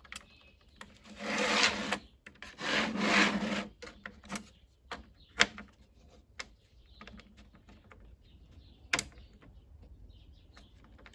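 3D-printed plastic socket rail being handled: two longer sliding rubs, then a few sharp clicks, the loudest near the end.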